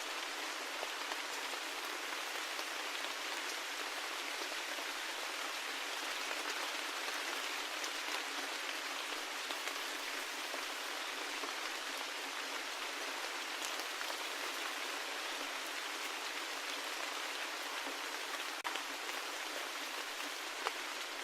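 Steady rain falling, an even patter with scattered individual drops ticking.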